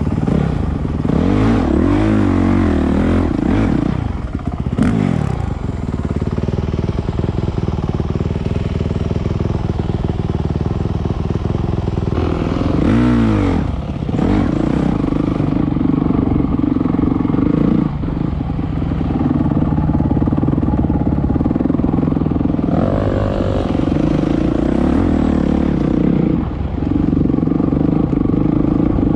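Enduro dirt bike engine heard from on board, running under throttle over rough ground. The revs drop and climb in a few quick swoops about a second in and again around halfway, and hold steadier in between.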